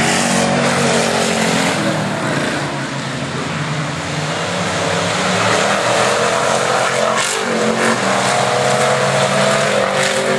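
Several dirt-track stock car engines running hard together, their notes rising and falling as the cars lap the track.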